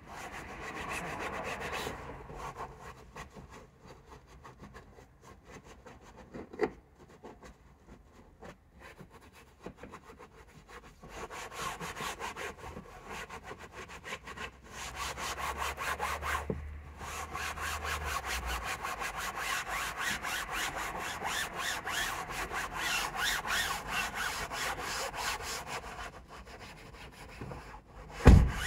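Rapid back-and-forth scrubbing on a car's fabric headliner, in long runs broken by short pauses. A sharp thump near the end is the loudest sound.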